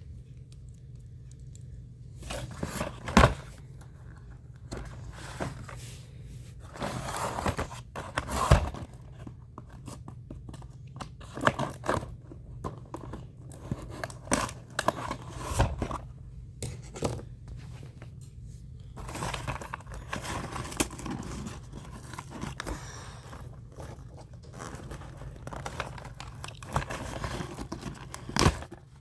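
Toy packaging being opened by hand: irregular cutting, tearing, scraping and crinkling of cardboard and plastic, starting about two seconds in, over a steady low hum.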